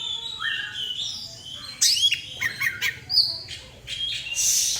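Oriental magpie-robin (kacer) singing a varied, fast run of clear whistles, rising slurred notes and short chirps, the kind of song used as a 'pancingan' to stir other kacer into singing.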